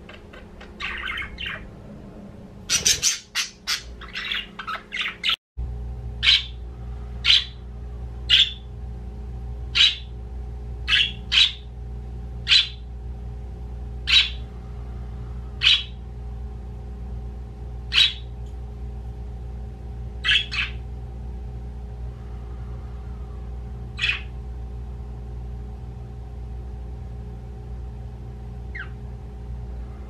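Budgerigars chirping: a quick run of chattering chirps in the first few seconds, then single short, sharp chirps about once a second that thin out after about sixteen seconds. A steady low hum runs underneath.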